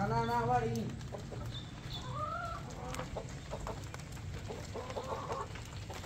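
Domestic chickens clucking softly as they move, with one drawn-out rising-and-falling hen call about two seconds in.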